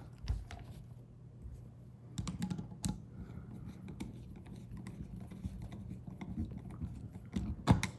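Small clicks and taps of a screwdriver and fingers working the terminal screws of a 30 amp RV plug while a wire is fastened in. There is a low steady hum underneath, a cluster of clicks about two to three seconds in, and a sharper pair near the end.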